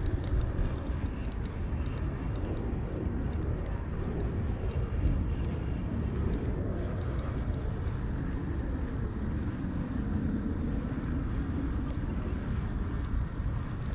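Steady low outdoor rumble, mostly wind on the microphone, with faint light ticks scattered throughout.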